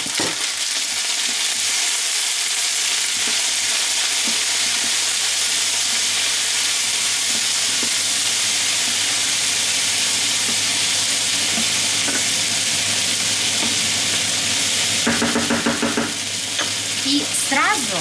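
Diced potatoes and onions sizzling steadily in a frying pan while being stirred with a wooden spatula.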